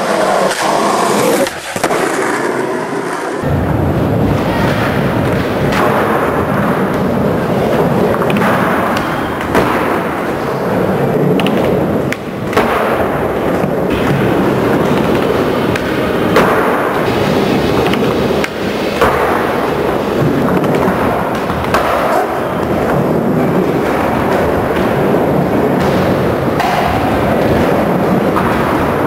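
Skateboard wheels rolling on concrete, a steady rumble, with a few sharp clacks of the board popping and landing. The rumble fills out in the low end about three and a half seconds in.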